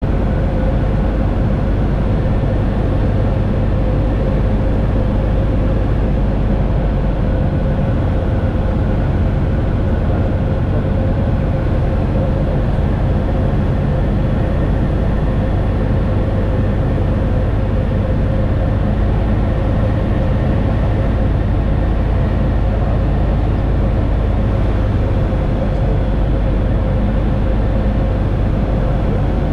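Aeroprakt A-22 Foxbat ultralight in flight, heard from inside the cockpit: engine and propeller running at a steady drone.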